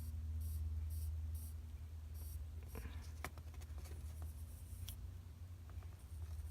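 Light scratchy rubbing and a few small sharp clicks as a wristwatch's screw-down crown is pushed back in and screwed down by hand, over a steady low hum.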